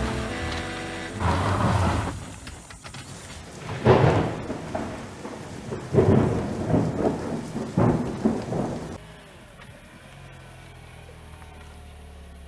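A thunderstorm with rain: several loud claps and rumbles of thunder, the strongest about four and six seconds in. About nine seconds in they stop and a much quieter steady low hum follows: the Dacia Duster's engine running.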